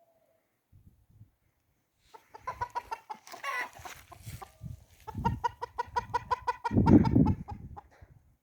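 Chickens clucking: after a quiet start, rapid runs of short, repeated clucks begin about two seconds in, with a louder low rustle or thump near the end.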